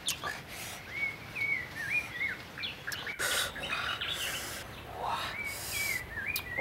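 A bird singing short phrases of wavy whistled notes, in two runs a few seconds apart, over a steady outdoor background. Brief scrapes and clicks come in between, from a spoon working a dish of sauce.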